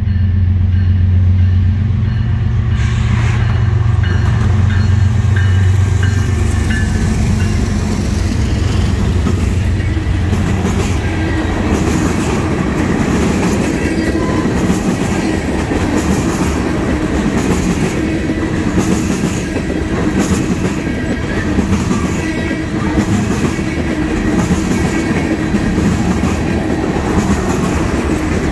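Norfolk Southern diesel locomotives passing close, their engines giving a deep steady drone for the first several seconds. Then a long string of oil tank cars rolls by with steady wheel noise and rhythmic clickety-clack over the rail joints.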